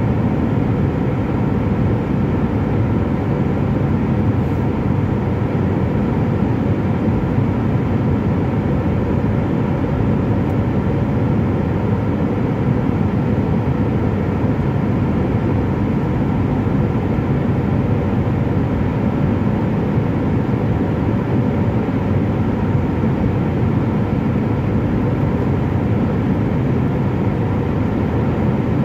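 Steady jet airliner cabin noise from the underwing turbofan engines and rushing airflow, heard inside the cabin at a window seat over the wing: an even, low rumble with faint steady hums above it that holds unchanged throughout.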